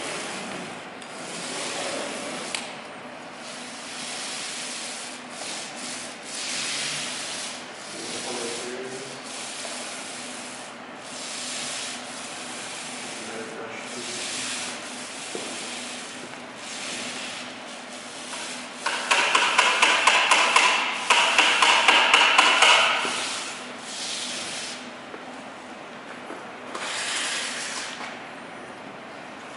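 Repeated short rubbing strokes, like hand sanding or scraping on a wall surface, coming every second or two. A louder stretch of rapid rattling clicks lasts several seconds about two-thirds of the way in.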